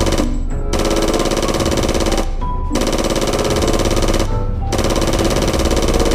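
Electronic toy AK-47 rifle playing its rapid-fire machine-gun sound effect, in three bursts of about a second and a half with short breaks between them.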